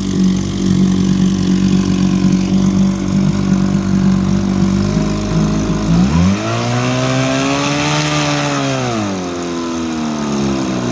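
1954 Johnson QD-15 10 hp two-cylinder two-stroke outboard motor running warmed up in a test tank. It idles steadily, is revved up about six seconds in, holds high briefly, then drops back to idle near the end.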